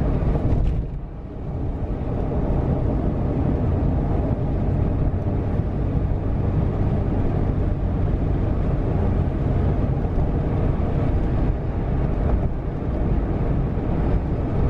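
Steady road and engine noise of a car driving on a paved road, heard from inside the cabin, dipping briefly about a second in.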